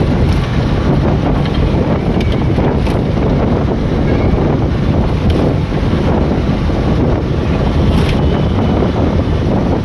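Steady wind buffeting the microphone, over the road and engine noise of a moving vehicle.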